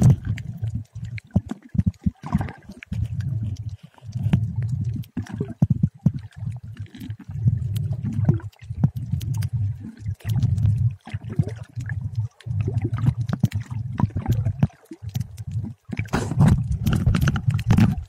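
Muffled underwater sound picked up by a camera held under the water: low sloshing and gurgling of water that comes in surges every second or two, with faint scattered clicks.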